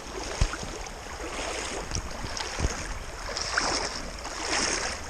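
River water swishing and splashing around the legs of someone wading through a shallow stream, over the steady rush of the current. There are a couple of dull knocks, and the splashing swells twice near the end.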